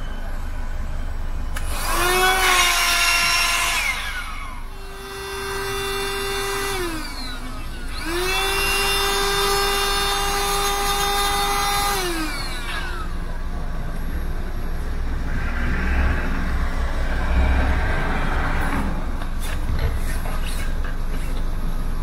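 Small electric air pump inflating an air mattress. It runs three times, the longest about four seconds, and each run starts with a rising whine and winds down in pitch when it stops. A softer noise follows later.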